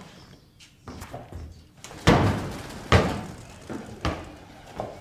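Heavy thuds and lighter knocks on the wooden floorboards of an old timber barn, echoing in the big hollow space. The two loudest come about two and three seconds in, under a second apart.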